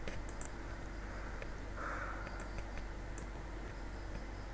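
A few faint, scattered clicks over a steady low electrical hum and hiss.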